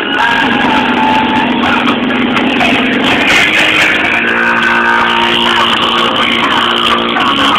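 Car stereo playing music at high volume through a 12-inch DB Drive subwoofer on about 500 W RMS, with held bass notes heavy enough to flex the car's roof.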